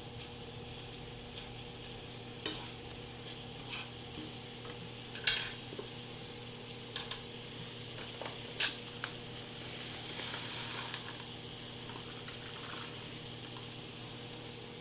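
Microwave oven running with a steady hum, heating a cup of water. Several sharp clinks of a utensil against dishware come over it, about four times, the loudest around five seconds in.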